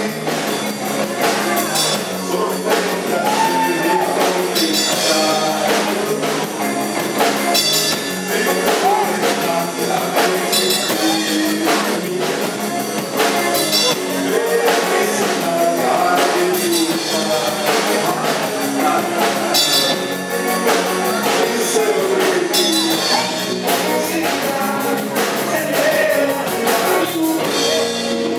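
Live rock band playing: a drum kit keeping a steady beat under electric guitars and bass, with a lead vocal.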